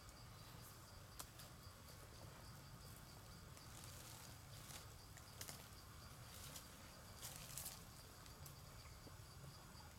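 Faint outdoor ambience: insects chirping steadily in a high, pulsing drone, with a few brief rustles and crackles of dry leaves, a cluster of them about seven seconds in.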